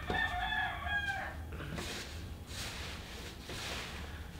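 One drawn-out, high-pitched animal call lasting about a second and a half, at the start.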